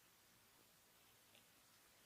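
Near silence: faint room hiss, with one soft tick about a second and a half in.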